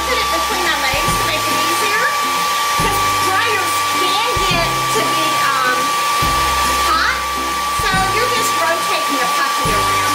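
Handheld hair dryer running on its high setting: a steady rush of air with a constant whine.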